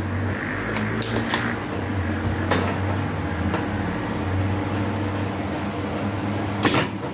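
Steady low machine hum with a few light clicks and taps scattered through it, from parts and tools being handled.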